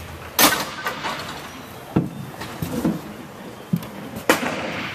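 Sharp cracks of roller hockey play, puck and sticks striking the boards and rink floor, ringing in a large hard-walled rink. The loudest comes about half a second in, another follows near two seconds, and two more come close together near the end.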